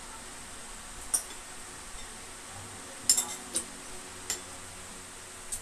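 Metal spoons and forks clinking against bowls as people eat, in about half a dozen short sharp clinks, several close together about three seconds in.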